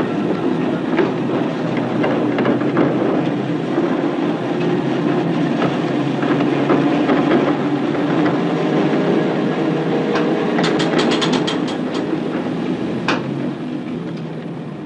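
Tram running on rails: a steady rumble with a clickety-clack of wheels over the track and scattered sharp clicks, a quick run of clicks about two-thirds of the way through.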